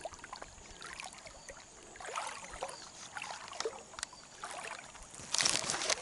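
Water sloshing and splashing as a person wades through flooded swamp grass, with irregular small splashes. The splashing grows louder near the end.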